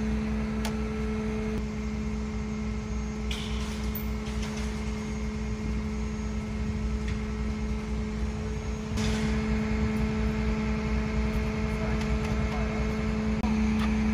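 Steady mechanical hum of an idling tow truck engine: one constant droning tone over a low pulsing rumble, with a few brief clicks and rustles.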